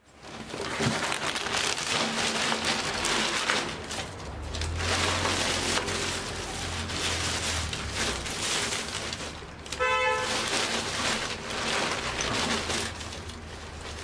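Plastic bag rustling and crinkling as hands dig through it, over a low traffic rumble. A short car-horn toot sounds about ten seconds in.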